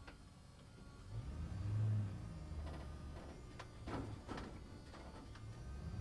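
Truck engine running as it drives through a parking structure, a low sound that swells about a second in, is loudest around two seconds, then carries on lower. A few short sharp knocks come in the second half.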